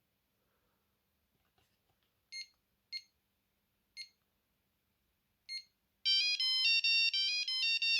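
Alcatel One Touch Easy mobile phone: four short keypad beeps as its buttons are pressed. About six seconds in, a quick electronic ringtone melody of stepped beeping notes starts playing.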